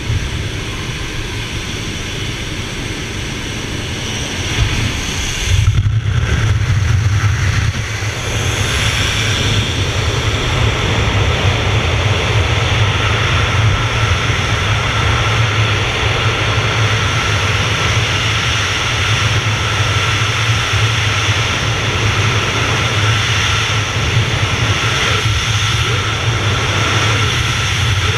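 Steady wind noise on the camera microphone: the light aircraft's engine and slipstream at the open door, then, after the exit about six seconds in, a louder, steady freefall wind rush of a wingsuit jump.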